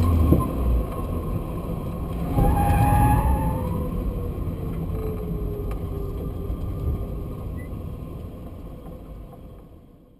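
Renault Twingo Gordini heard from inside the cabin as it slows: engine and road noise with a faint whine that falls in pitch midway, the sound steadily getting quieter and fading away near the end.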